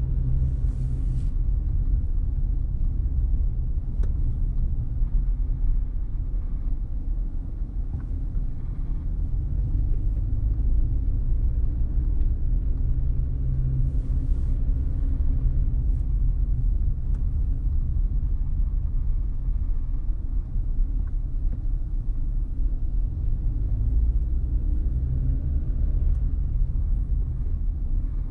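Steady low rumble of a car being driven: engine and road noise, with a brief hiss about a second in and again halfway through.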